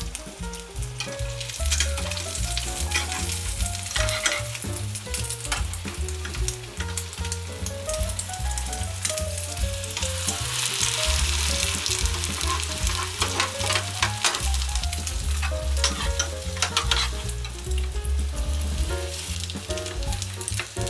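Beaten egg sizzling and crackling as it fries in an oiled frying pan, with a thicker burst of sizzle about ten seconds in.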